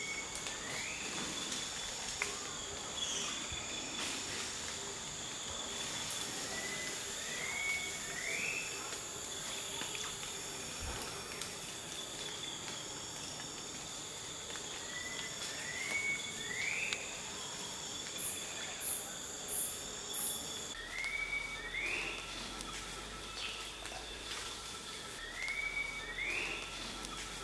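Tropical forest insects shrilling steadily in several high, even tones; the highest tone stops about two-thirds through, right after three short, louder high buzzes. A bird repeats a short rising two-note call every several seconds.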